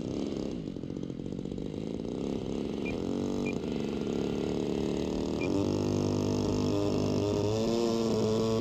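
A model airplane's engine turning its propeller, the revs wavering up and down, then climbing and holding high and steady in the last few seconds, as at the start of a takeoff run.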